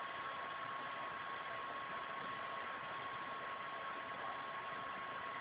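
Steady hiss with a thin, steady high tone under it: the recording's own background noise, with nothing else standing out.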